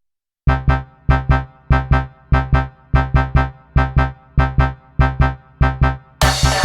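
Music: short, pitched chord stabs in pairs, repeating evenly, with a fuller beat of drums and cymbals coming in near the end.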